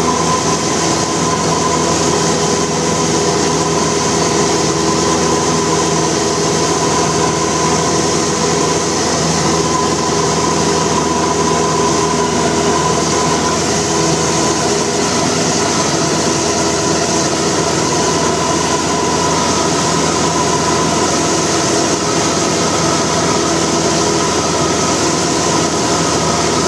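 Cessna 172 Skyhawk's engine and propeller in steady level flight, heard from inside the cabin: a loud, even drone with rushing air noise.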